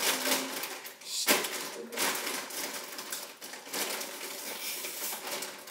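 Crinkling and crunching of a potato-chip bag being handled, with many small clicks and one sharper click about a second in.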